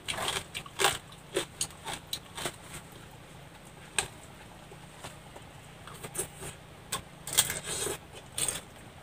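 Scattered light clicks and crunches of eating: chopsticks picking crisp stone crabs out of a metal wok, and a jackfruit being pulled apart by hand. The clicks come thicker about three-quarters of the way through.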